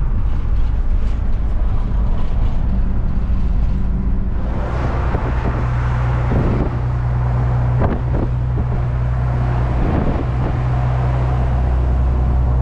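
Engine and road noise from inside a moving vehicle. About four seconds in it changes to the steady engine drone and road noise inside a heavy truck's cab at highway speed, with an occasional knock.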